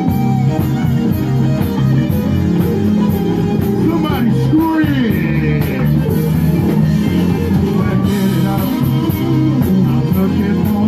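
Live rock band playing: an electric bass carries a line of strong held low notes over a drum kit keeping time on the cymbals, with a sliding melody line rising and falling around the middle.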